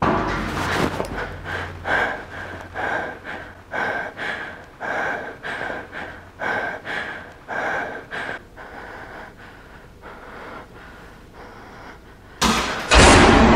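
A person breathing heavily and fast, about one loud gasp every three quarters of a second, growing softer after about eight seconds. Near the end a sudden loud hit cuts in, louder than anything before it.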